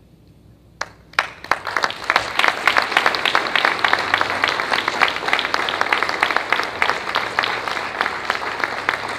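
Audience applauding. A few single claps come about a second in, then it fills in quickly to steady applause.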